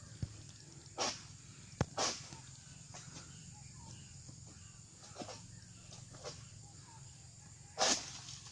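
Oil palm harvesting pole's sickle working in the palm crown: a few short sharp cutting strokes and frond rustles, one about a second in, a crack and another stroke about two seconds in, and a strong one near the end.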